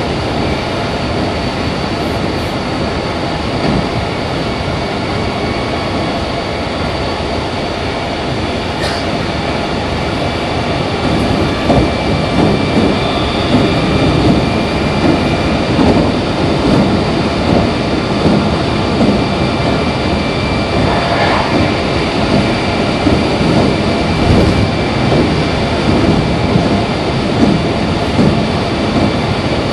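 Running sound of a Meitetsu 2300 series electric train heard from inside the car between stations: continuous wheel-on-rail noise with motor hum and a few faint steady tones. It gets louder about twelve seconds in.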